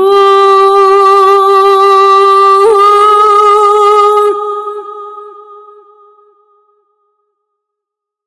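Sampled solo voice from the "Clara's Vocal" Kontakt library singing one long held note on a vowel with gentle vibrato, with a brief break partway through, then fading away over a couple of seconds.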